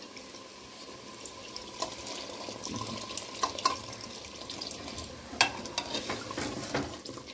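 Water pouring from a jug into a pressure cooker of hot browned mutton masala, a steady splashing pour, with a few light clinks of metal against the pot.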